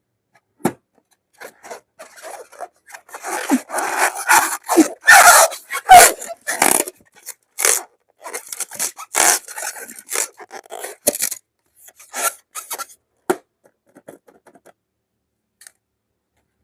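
Slime-filled balloons being handled: many short, irregular squishing and rubbing noises, densest and loudest around four to seven seconds in, thinning out toward the end.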